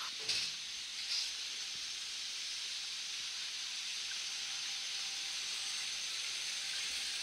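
Model railway running noise: a steady hiss with a faint high whine as a model train runs on the track, with two short clicks in the first second and a half.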